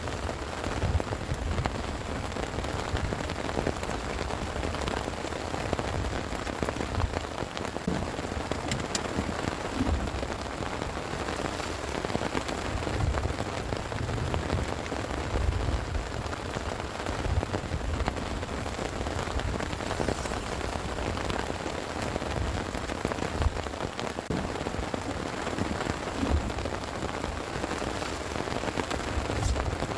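Heavy rain falling steadily, an even hiss with scattered sharp drop ticks, over uneven low rumbling.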